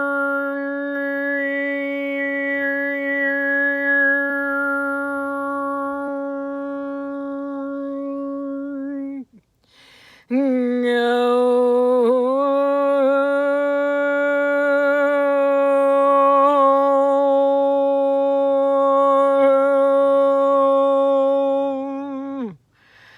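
A woman's voice toning two long held notes, the first for about nine seconds, then, after a breath, a slightly lower one for about twelve seconds; each ends in a downward slide.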